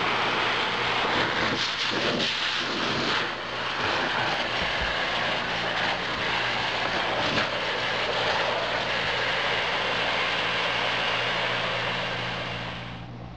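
Vacuum cleaner running with its hose and dusting-brush attachment, a steady loud whooshing hiss over a low motor hum. It winds down about a second before the end.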